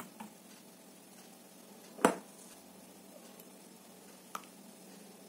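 Kitchen utensils knocking against a plastic mixing bowl: one loud single knock about two seconds in, with lighter clicks at the start and near the end.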